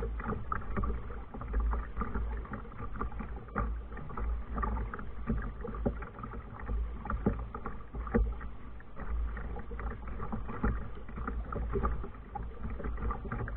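Kayak under way: paddle strokes and water splashing and sloshing against the hull, with irregular small knocks, over a steady low rumble.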